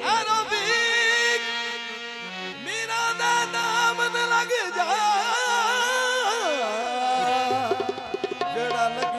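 Qawwali music: male voices sing long, wavering, sliding lines without clear words over steadily held accompaniment notes. A short run of quick drum strokes comes about eight seconds in.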